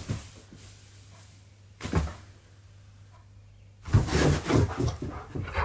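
A person shouts "Boo!" to startle a husky, with short thuds of movement; the loudest and longest burst comes about four seconds in.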